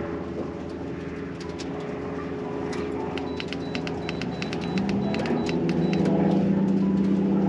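An engine running steadily, growing louder about five seconds in, with a quick run of sharp clicks in the middle.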